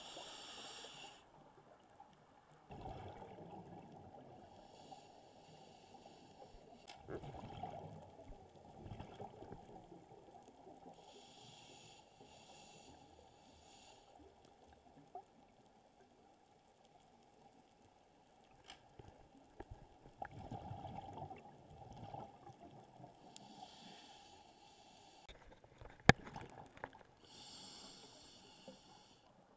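Scuba diver breathing through a regulator underwater: a hiss on each inhale alternating with a rumbling burst of exhaust bubbles on each exhale, several breaths in all. One sharp click near the end is the loudest moment.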